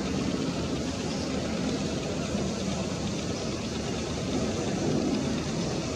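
Airbus A321 airliner on final approach with its landing gear down, its jet engines giving a steady rumble that grows slightly louder near the end.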